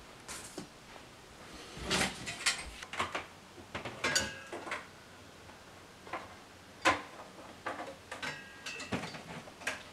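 Studio equipment being handled and set up: scattered clicks, knocks and small clinks, some ringing briefly, with the sharpest knocks about two seconds in and near seven seconds.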